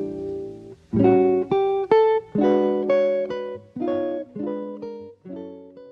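Outro music on plucked guitar: a run of chords and single notes, each struck sharply and ringing away.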